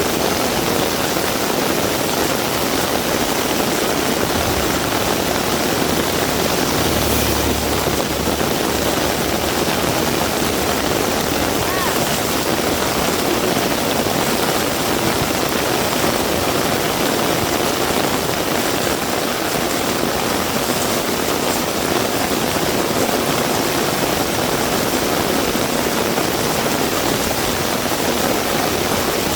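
Heavy rain falling steadily, a dense even hiss, with a short low rumble about seven seconds in.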